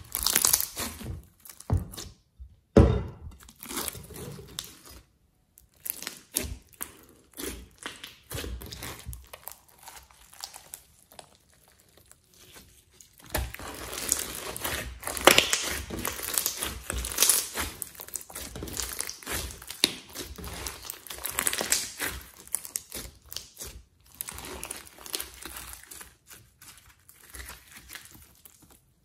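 Hands squishing and kneading thick slime packed with small beads: sticky squelches and crackly pops as it is pressed, stretched and folded. Quieter for a spell in the middle, then a busier run of crackling.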